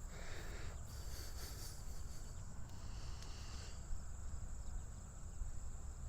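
Wind buffeting the microphone in a low rumble, with insects trilling steadily and high-pitched in the background.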